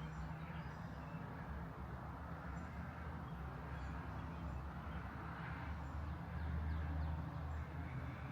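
Outdoor ambience: a steady low rumble of distant traffic, with a few faint bird chirps.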